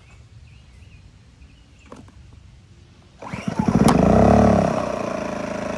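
Wen 2350 inverter generator cold-started on choke, catching on the first pull about three seconds in. The engine revs up, drops back and settles into steady running.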